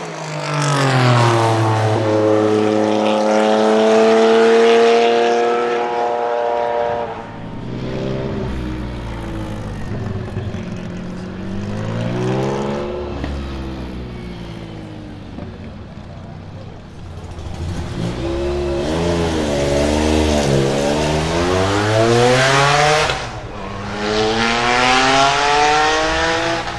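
Singer DLS Turbo's straight-piped twin-turbo 3.8-litre flat-six revving hard, the pitch climbing and dropping again and again through gear changes as the car drives past.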